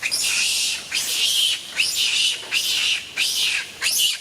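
Young monkey screeching angrily in a run of harsh, high-pitched screams, about six or seven in quick succession, each opening with a short rising squeal.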